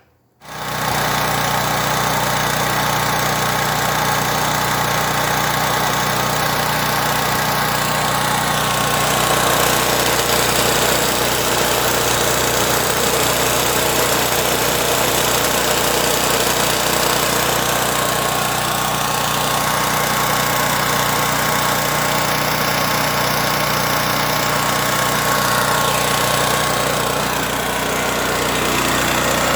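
Pro Force Power Mate 2500-watt generator's small engine running at a steady speed, no longer surging now that the clogged pilot jet in its carburetor has been cleaned. The engine sound comes in suddenly about half a second in.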